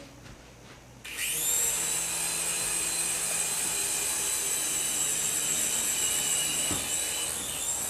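Toy remote-controlled helicopter's small electric rotor motor spinning up about a second in with a rising whine, then running steadily with a high-pitched whine and buzz, and winding down near the end.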